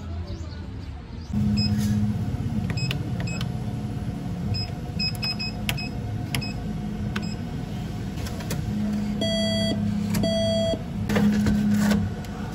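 ATM in use: a string of short keypad beeps as the buttons are pressed, then two longer beeps, then the cash dispenser whirring as it pushes out a banknote near the end.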